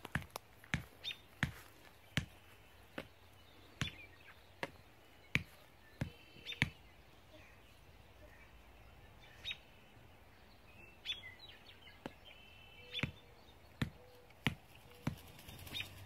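A series of sharp knocks, roughly one a second, thinning out to a single knock in the middle of the stretch and picking up again near the end. A few short, high bird chirps come in between.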